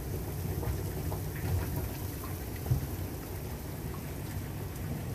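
Maple sap at a hard boil in a wood-fired evaporator pan: a steady, rain-like bubbling crackle over a low steady rumble.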